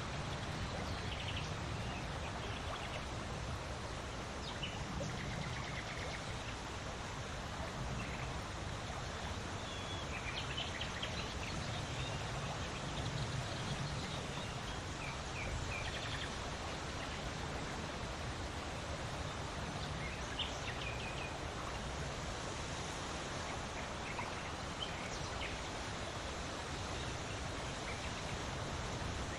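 Wind blowing steadily with a low rumble, with short bird chirps here and there.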